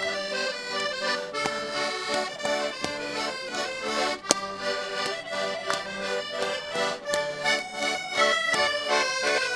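Portuguese concertinas playing a lively traditional tune as an instrumental passage between sung verses. There is a single sharp knock about four seconds in.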